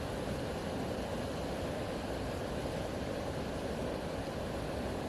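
Steady rushing water, an even roar that does not change.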